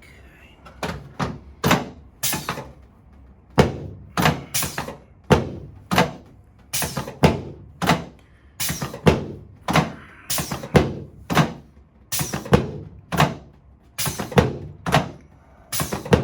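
A rapid series of dull thuds, roughly two a second in uneven groups, from a chiropractic adjustment on a padded treatment table with the patient lying face down.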